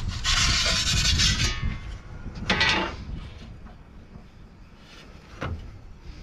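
Perforated metal pizza peel scraping across the stone of a gas-fired pizza oven as the dough is slid in, a harsh scrape lasting about a second and a half. A shorter scrape follows about two and a half seconds in as the peel is drawn back out, and a single click comes near the end, over the low steady rush of the gas burner.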